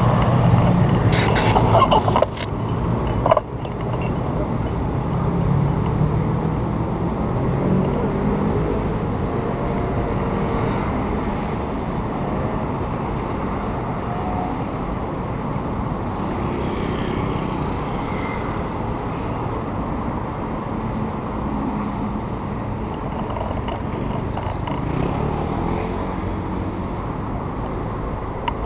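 City street traffic: a steady hum of cars and motorbikes running and passing, their engine pitch rising and falling as they go by. A few sharp knocks sound in the first few seconds.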